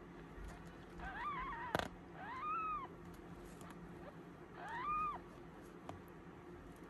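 Newborn kitten mewing three times, short high calls that rise and fall in pitch, with a sharp click between the first two.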